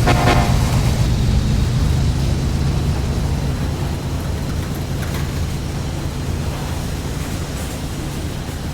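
BNSF container train passing: a horn note cuts off about half a second in, then the low, steady rumble of the train slowly fades.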